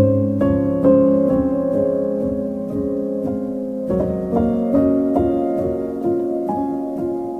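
Background piano music playing slow, held chords that change every few seconds.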